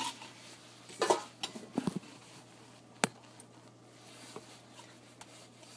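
Short knocks and clicks of a mustard bottle being picked up and handled, with one sharp click about three seconds in.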